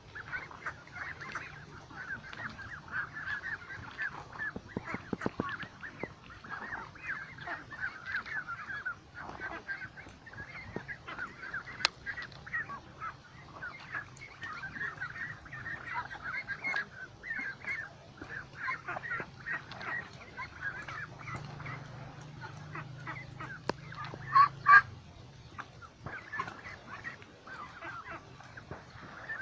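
A flock of white domestic ducks calling continuously, many overlapping calls at once, with a couple of louder calls close by late on.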